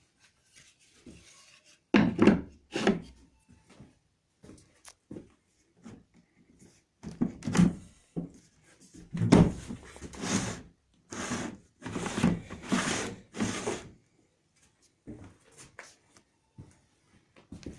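Wooden pieces being handled: irregular knocks and short scraping rubs of wood on wood, thickest through the middle, with no saw motor running.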